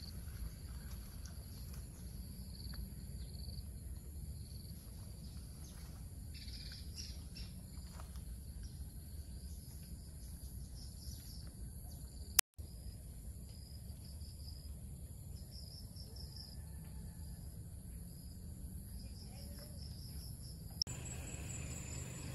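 Outdoor ambience of steady high-pitched insect buzzing with intermittent chirps and a few bird calls, over a low rumble. A single sharp click with a brief dropout comes about halfway through, and the sound changes abruptly shortly before the end, as at a join between recordings.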